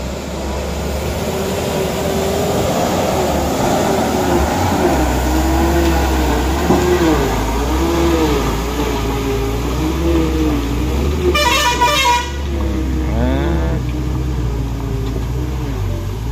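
Vehicle engine revving up and down over and over, its pitch rising and falling about once a second over a steady low rumble. A short horn blast sounds about eleven and a half seconds in.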